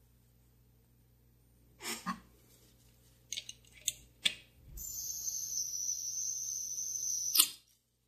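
Butane refill can pressed onto the fill valve of a vintage Ronson gas lighter: a few short clicks as the nozzle is seated, then a steady high hiss of gas flowing into the lighter's tank for about three seconds, cut off with a sharp click.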